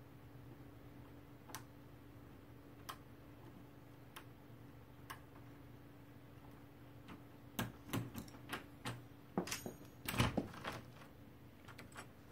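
Small metal clicks from a hook pick and tension wrench working the pins of a doorknob's pin-tumbler lock, single clicks a second or so apart. In the last few seconds comes a quick run of louder clicks and knocks as the lock opens and the door swings open.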